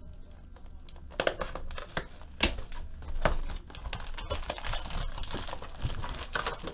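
Foil wrappers of Panini Spectra football card packs crinkling and rustling as the packs are handled and pulled from their box. Irregular sharp clicks and crackles run through it; the sharpest comes about two and a half seconds in.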